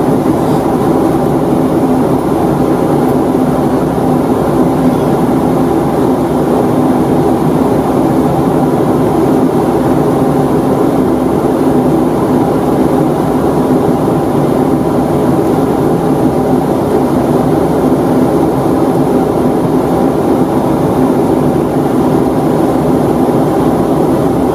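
Steady cabin noise of a Boeing 757-200 in flight: the drone of its Rolls-Royce RB211 engines and the rush of air, with a constant hum and a few steady tones.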